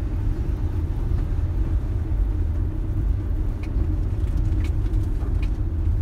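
Steady low rumble of engine and road noise heard from inside a moving vehicle's cabin, with a few faint clicks.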